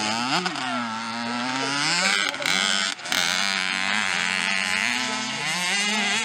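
Small motocross bike engine revving as it is ridden on a dirt track, its pitch rising and falling with the throttle, with a brief drop about three seconds in.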